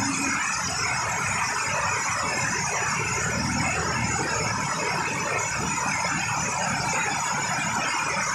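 Heavy rain falling on a roof and pouring off its edge: a steady, dense hiss.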